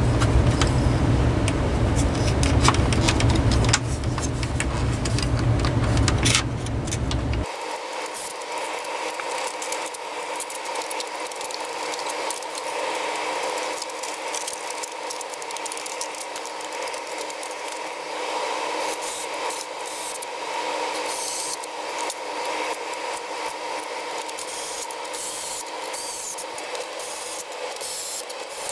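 Plastic housing parts and wiring of a Honeywell HW-690 window fan being handled during reassembly: rubbing, scraping and light rattling, with scattered clicks. A steady low rumble cuts off abruptly about seven seconds in.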